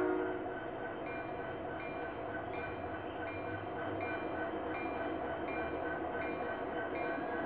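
Sound of a pair of G-scale SD70MAC model diesel locomotives hauling a train: a short horn note cuts off at the start, then a locomotive bell rings about every three quarters of a second over a steady diesel engine rumble.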